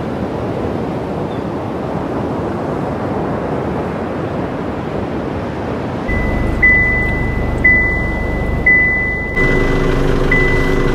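A steady rushing noise, then an abrupt change to a high electronic beep pulsing about once a second over a low rumble, with a deeper droning tone joining near the end.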